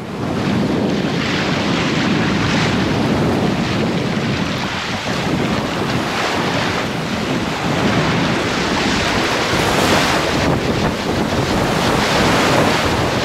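Water rushing and splashing along a Sabre 36 sailboat's hull as it sails upwind through a choppy sea, in loud surges, with heavy wind buffeting on the microphone.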